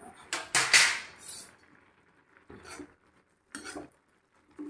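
A steel spatula clattering and scraping in an iron kadhai while stirring noodles. A loud clatter comes about half a second in, then a few shorter scrapes follow.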